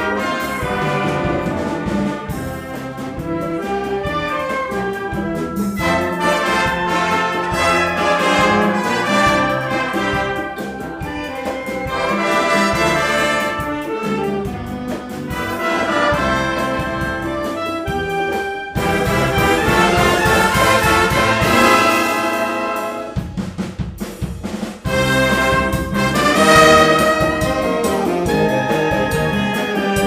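A symphonic wind band playing live, with clarinets and brass carrying the tune. About two-thirds of the way through it breaks into a new, fuller section, with a few seconds of short, choppy stabs before the full sound returns.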